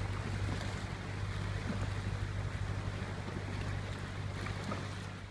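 Oars of a wooden Whitehall rowing skiff dipping and swishing through calm water, over a steady low hum.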